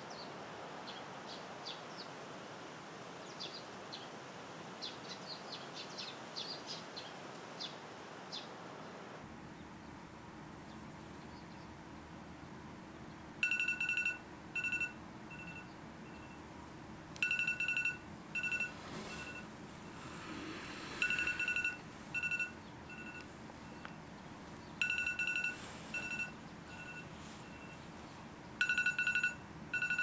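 Small birds chirping briefly at dusk for the first several seconds. After that, in a quiet room, an electronic phone tone starts sounding about a third of the way in: a loud beep followed by shorter, fading beeps, repeating about every four seconds, like a ringtone or alarm going off beside a sleeper.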